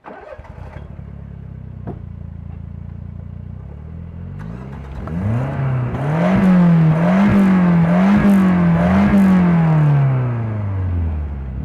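Fiat four-cylinder petrol engine idling through its exhaust, then revved four times in quick succession, each rev rising and dropping back, before the revs fall away to idle near the end.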